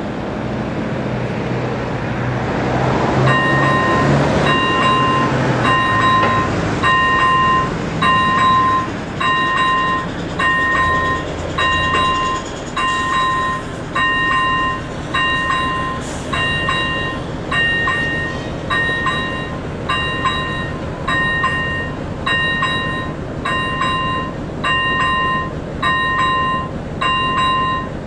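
Level-crossing warning bell (AŽD ZV-01 electronic bell) starting about three and a half seconds in and then ringing a short pitched ding about once a second: the crossing is activated and warning of an approaching train.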